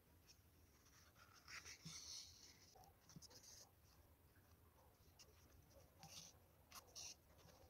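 Very faint, with a few short scratchy rustles as a needle and thin thread are drawn through crocheted yarn fabric.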